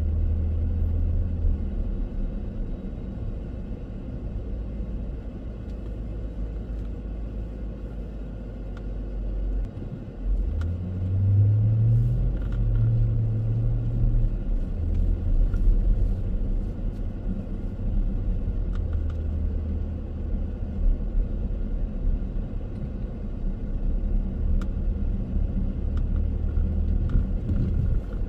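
Car driving: a steady low engine and road rumble, with the engine note dipping and then rising in pitch about ten seconds in as the car speeds up.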